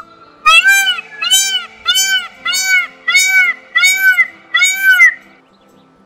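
Indian peafowl calling: a series of about eight nasal, arched calls that rise and fall in pitch, about two a second, stopping shortly before the end.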